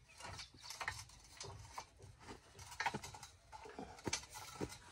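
Faint, irregular clicks and clinks of drill pipe lengths being lifted and handled.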